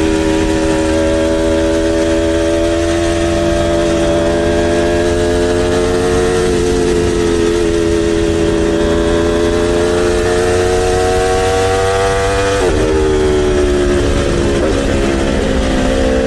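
Motorcycle engine running under way, its note slowly rising, with a sharp drop in pitch about thirteen seconds in before it steadies lower.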